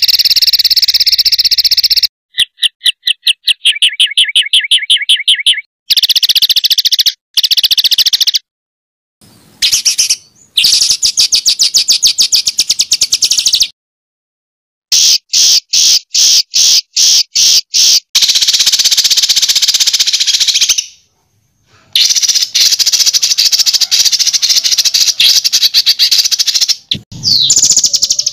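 Songbird song made of rapid 'tembakan' phrases: fast runs of sharp, high notes repeated many times a second. The phrases come in loud segments that cut off abruptly into short silent gaps.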